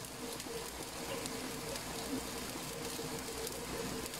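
Rice frying in oil in a nonstick pan, a steady sizzle full of fine crackling pops.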